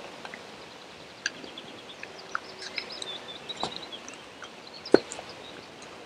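Birds chirping over a faint outdoor background, with a few light knocks as split pine pieces are handled and one sharper wooden knock about five seconds in.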